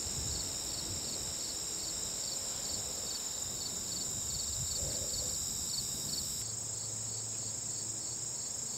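Late-summer insect chorus of crickets in grassland: a steady high-pitched drone with a regular chirp pulsing about three times a second over it, the chirping stopping about six and a half seconds in.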